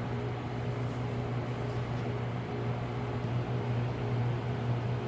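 Steady low electrical hum with a constant background hiss, unchanging throughout.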